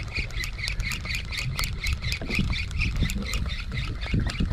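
Spinning reel being cranked fast while jigging, giving a rhythmic squeak about six times a second, over a low rumble.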